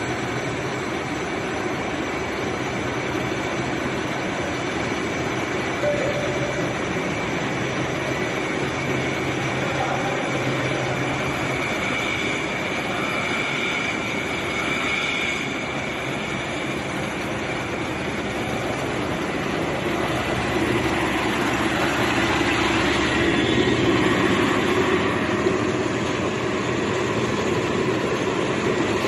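Flux-cored welding wire drawing line running at high speed: a steady mechanical rush with a faint high whine and a low hum. It grows somewhat louder about two-thirds of the way through.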